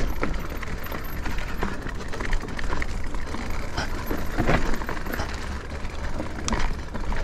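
Electric mountain bike riding a rough trail: a continuous rumble of tyres and wind buffeting the microphone, with irregular knocks and rattles from the bike over the ground.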